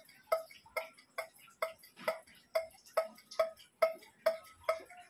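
Steady clock-like ticking, a little over two ticks a second, each tick a short, evenly spaced pitched click.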